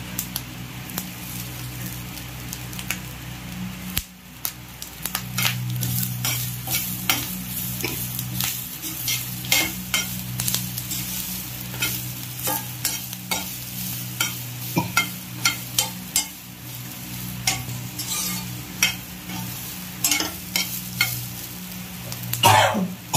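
Steel spatula stirring steamed ragi puttu through a fried onion-and-chilli tempering in a kadai, scraping and clinking against the pan at irregular intervals over a light sizzle. A brief swooping sound near the end.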